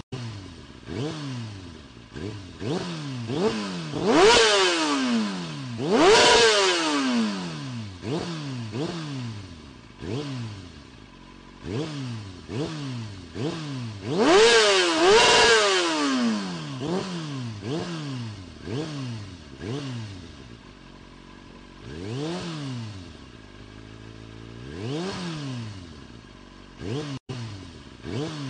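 Motorcycle engine revving again and again, its pitch climbing and dropping every second or two, with the hardest revs about four, six and fifteen seconds in.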